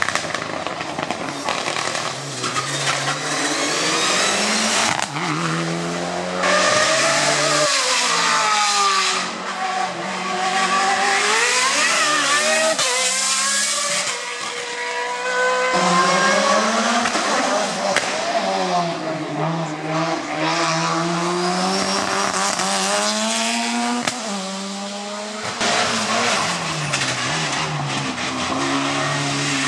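Hill-climb race cars going past one after another, each engine revving up and dropping back through gear changes, in a string of short cut-together passes.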